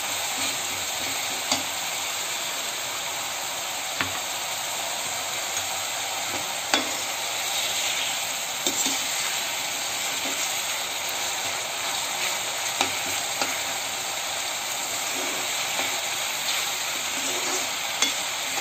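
Chopped onions sizzling steadily in hot mustard oil in a kadhai as they turn light golden, stirred with a spatula that taps and scrapes against the pan now and then.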